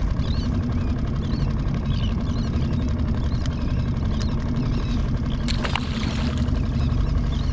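Small skiff's outboard motor running steadily at low trolling speed. Near the end come a sharp click and a short zip as a lure is cast out.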